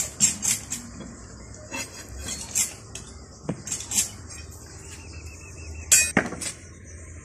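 Irregular sharp metallic clinks and scrapes, a mason's steel trowel striking and scraping bricks and mortar during wall building. The loudest scrape comes about six seconds in, and a steady faint high insect buzz runs underneath.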